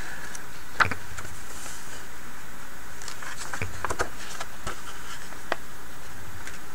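Paper pages of a thick auction catalog being turned by hand: scattered rustles and flicks, the sharpest about a second in, over a steady background hiss.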